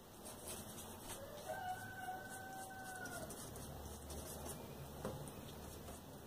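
A rooster crowing once, faintly, for about two seconds, its pitch rising at the start and dropping away at the end. Faint paper rustling and small clicks from handling cut magazine pieces run underneath.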